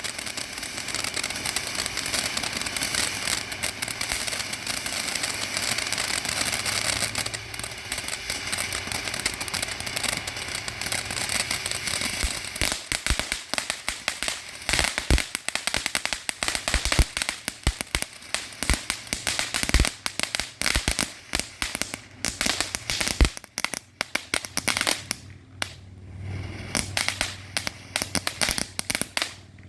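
Fireworks crackling densely for about twelve seconds, then breaking into separate sharp pops and bangs that grow sparser toward the end.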